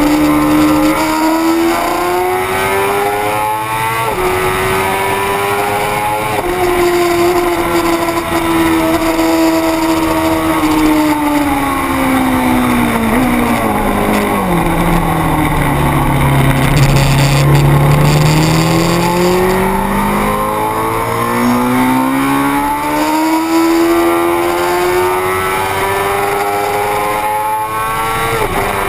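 A 600 cc racing motorcycle's engine at high revs, climbing and upshifting with sharp drops in pitch about four and six seconds in. Its note then falls steadily as the bike slows, bottoms out, and climbs again under acceleration, with another upshift near the end.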